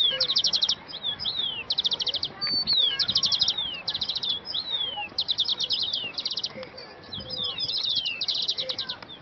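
Songbirds calling: short, high, rapid trills of chips, each lasting about half a second and coming again and again, mixed with brief downward-sliding whistles.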